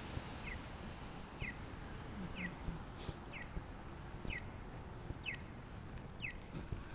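Accessible pedestrian crossing signal giving its walk tone: a short, falling electronic chirp repeated evenly about once a second, starting about half a second in, over faint street noise.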